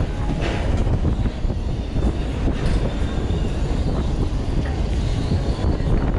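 Wind rushing over the on-ride microphone with a steady low rumble as the inverting flat ride swings the seat through the air, with a faint high whine in the middle.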